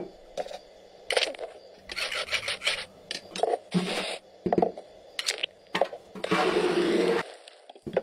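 Drumsticks tapping and scraping on a small wooden block and a cloth-covered drum, then striking a snare, mimicking a cartoon scene's sound effects: a run of scattered knocks and clicks with short scrapes and one longer hissing scrape about six seconds in.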